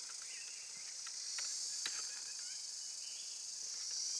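Forest insects giving a steady high-pitched drone, with a few faint bird chirps and a couple of light clicks.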